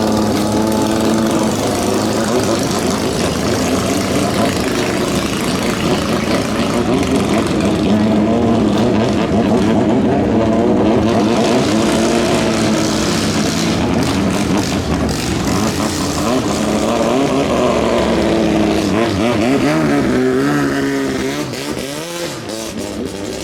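Racing boat engine running hard at high revs, its pitch wavering up and down as the throttle changes, rising about three seconds before the end and then dropping off in level.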